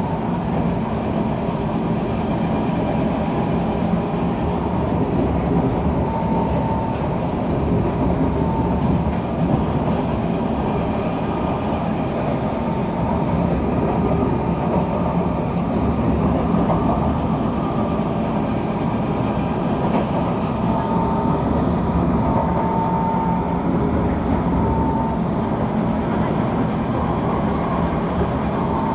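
Cabin noise of a Kawasaki C151 MRT train running steadily: a continuous rumble of wheels on rail and running gear. A faint high tone comes and goes several times.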